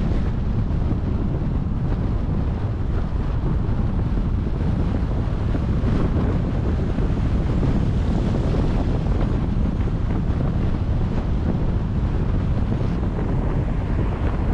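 Wind buffeting the microphone of a camera on a moving car, a steady low rumble with road noise mixed in.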